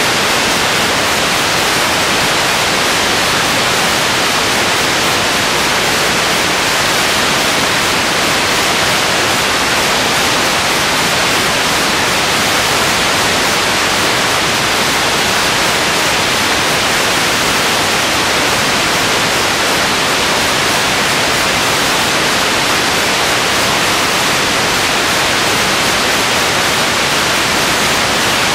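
Steady loud hiss of static noise from the recording or its transfer, unchanging throughout, with no crowd, impacts or voices standing out from it.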